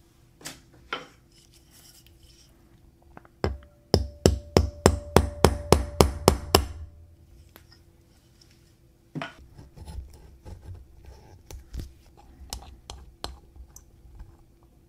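Sharp metallic taps on a watchmaker's staking-set punch, driving the old balance staff out of the balance wheel: one knock, then a run of about ten even taps at three or four a second with a faint ring under them. Lighter clicks of the tool being handled follow.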